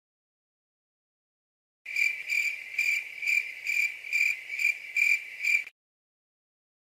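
Crickets chirping, the stock 'awkward silence' sound effect: a steady run of high chirps, about two a second, that starts about two seconds in and cuts off suddenly near the end.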